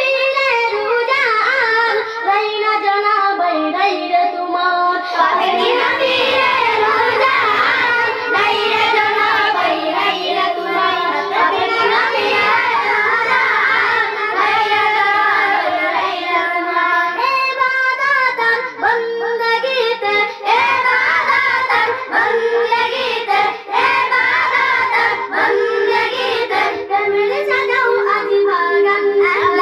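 A group of girls singing a Bengali Ramadan gojol, an Islamic devotional song, together into handheld microphones. The voices grow fuller about five seconds in.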